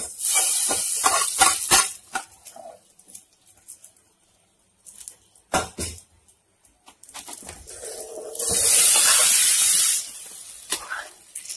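Hot dry-roasted grated coconut hissing as it is tipped into beef curry in a pressure cooker: a loud hiss at the start and another for about a second and a half near the end, with a few sharp clicks of a spoon on the metal pot between.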